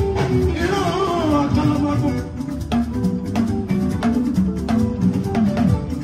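Live band music: electric guitars with a talking drum and other percussion keeping a steady beat, and a voice singing over it.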